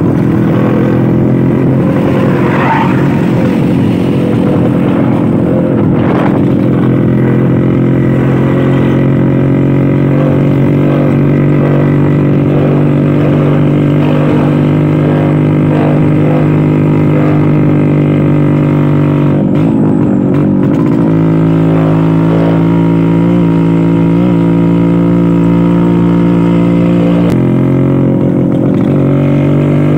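Classic two-stroke Vespa scooter engine running steadily under way, its note breaking and shifting in pitch twice, about two-thirds of the way through and again near the end.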